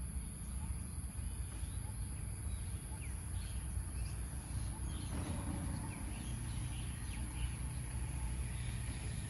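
Outdoor ambience: short, faint bird chirps now and then over a steady low rumble and a constant high-pitched whine.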